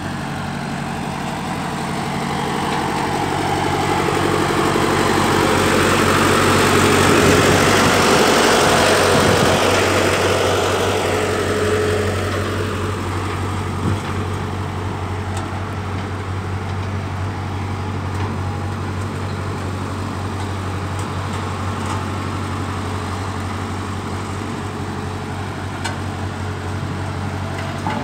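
Vibratory road roller's diesel engine running steadily with a low hum. A broader rushing noise builds to its loudest about eight seconds in, then fades over the next few seconds as the engine runs on.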